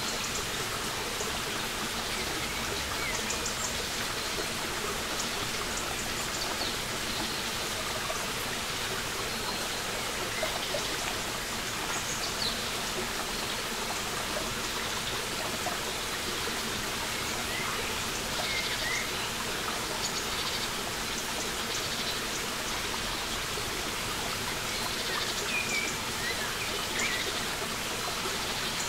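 Small forest brook running over rocks: a steady babble and trickle of water. Faint short bird chirps come through now and then over the water.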